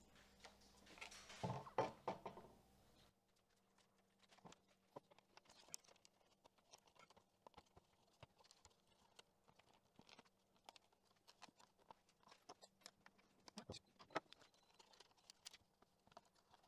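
Faint, scattered clicks and taps of a leather bicycle saddle's metal rails being handled and fitted into a seat post clamp, with a louder scraping rustle about one to two seconds in.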